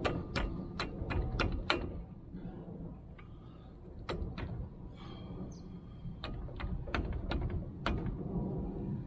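Sharp knocks and taps from working a steel mounting pin into a mini excavator's quick coupler: a quick run of about six in the first two seconds, then scattered knocks.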